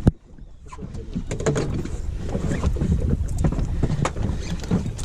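Small boat out at sea: a steady low rumble of wind and water with scattered knocks and clicks from handling on deck, and one sharp knock at the very start.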